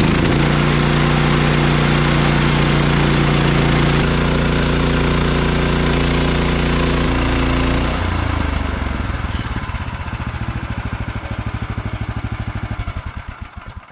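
Portable sawmill's gas engine running at full throttle while the blade cuts the first slab off a log. About eight seconds in it drops off the throttle and winds down, stopping near the end.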